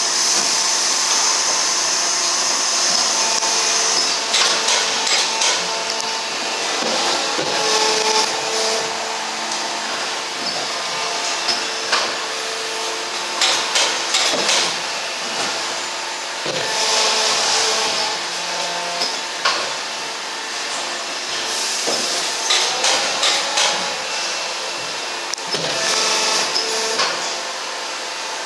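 Plastic injection moulding machine running: a steady mechanical hum with several held tones, spells of hiss and scattered clicks and knocks.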